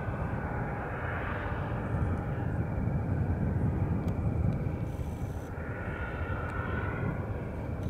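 Boeing 757-330 airliner's jet engines on its landing approach: a steady low rumble with a higher whine that swells twice.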